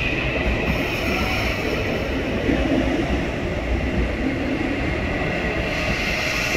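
MTR East Rail line electric trains: one pulling out along the platform while another approaches. The wheels and running gear on the track make a steady rumble, with a high tone near the start.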